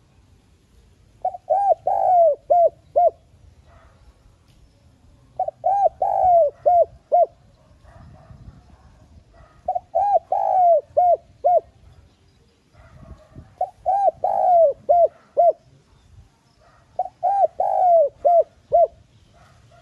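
Spotted dove cooing: five phrases about four seconds apart, each a quick run of six or seven husky coos with a longer slurred note in the middle.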